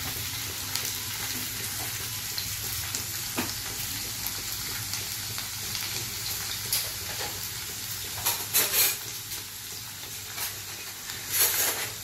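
Cut okra shallow-frying in oil in a nonstick wok: a steady sizzle, with two louder short bursts in the second half.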